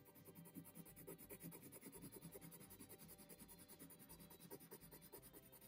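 Coloured pencil scratching over paper in quick back-and-forth shading strokes, about seven a second, faint.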